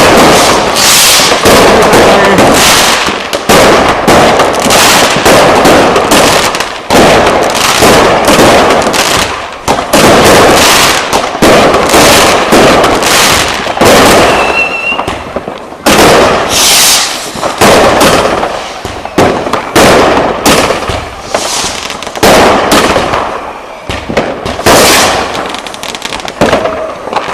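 Weco Big Crackles firework battery firing shot after shot, about one a second, each a sudden loud burst from its crackling-effect shells.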